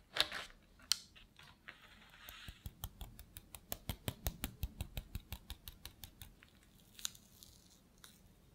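A knife sliding down through a chocolate cheesecake onto parchment paper just after the start, then a quick, even run of light taps, about five a second, for about four seconds.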